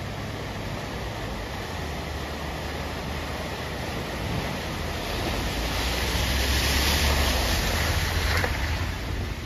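Van wading through deep floodwater: a steady rush and splash of water pushed aside by the wheels, with the engine's low rumble underneath. The water noise swells as the van comes close, loudest about seven to eight seconds in, then eases.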